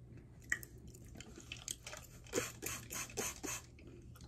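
Mouth chewing a piece of edible clay: a run of faint, wet clicks and small squishy crunches.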